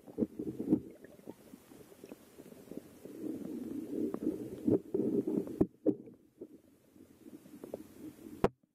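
Underwater sound picked up by a camera in a waterproof housing on a riverbed: a low, muffled rumble of moving water with scattered clicks and knocks. It drops away abruptly about five and a half seconds in and again near the end.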